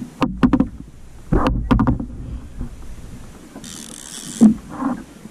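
Rod, reel and gear knocking on a fishing kayak while a fish is played: a cluster of sharp knocks and clicks in the first two seconds, then a short hiss just before four seconds in.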